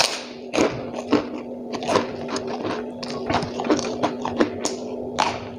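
Close-up mouth sounds of eating rice by hand: wet chewing with lip smacks and mouth clicks several times a second.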